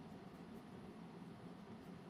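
Near silence: faint, steady room-tone hiss.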